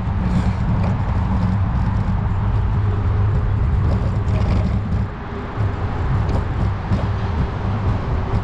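Steady low wind rumble on the microphone of a moving bicycle, easing briefly about five seconds in.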